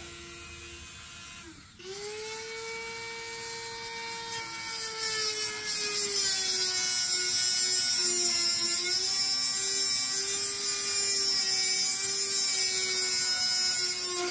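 Handheld rotary tool with an abrasive cut-off wheel cutting through the steel end of a hair shear blade: a steady high motor whine that dips and recovers as the wheel is pressed into the metal. A loud grinding hiss joins in about five seconds in and carries on.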